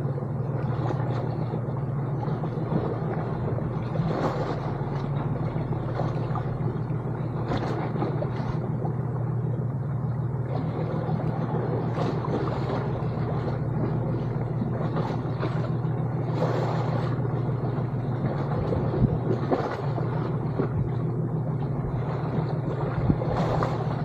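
Steady low hum of a boat engine running, with a few faint crackles and clicks of water over it.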